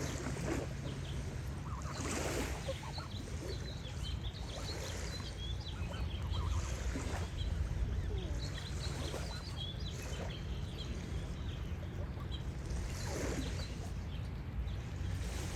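Geese honking several times, a harsh call every couple of seconds, over steady chirping of small songbirds, with a low rumble underneath.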